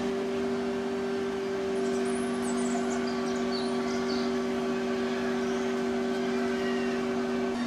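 A steady machine-like hum holding two fixed pitches, with faint high chirps about two to four seconds in.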